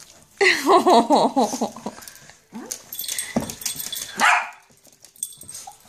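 Small dog whining in a wavering pitch that rises and falls for about a second and a half, then giving a few short barks.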